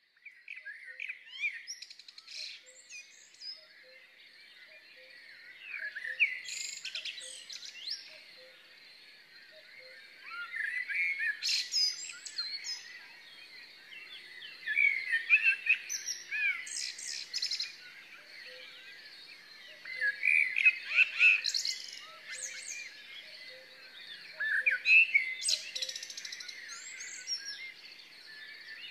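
Woodland songbirds singing, bright varied chirping phrases that come in bursts every four to five seconds, with faint low two-note calls repeating in the background.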